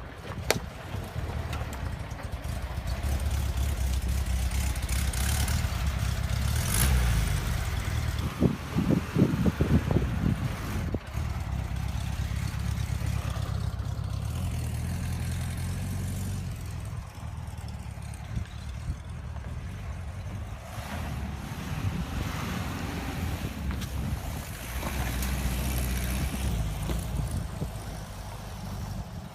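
Volkswagen bus engine running as the van drives over rough ground, the revs rising and falling, with a burst of knocks and rattles about nine seconds in.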